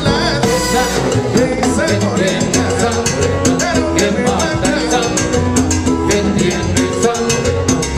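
Live salsa band playing, with a steady percussion rhythm over a bass line.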